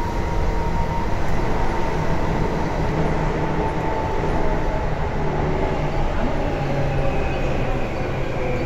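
Tobu 9000 series electric train running through a subway tunnel, heard from inside the car: a steady rumble of wheels and running gear with a thin whine of steady tones from the traction equipment.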